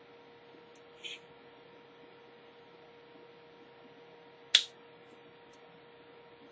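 Victorinox Tinker Swiss Army knife being handled: a soft tick about a second in, then a sharp click about four and a half seconds in as a blade snaps shut on its spring. A faint steady electrical hum runs underneath.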